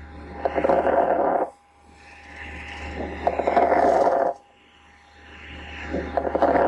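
Recorded lung sounds as heard through a stethoscope: three breaths, each a rushing noise that builds and then cuts off abruptly, with a faint steady hum underneath.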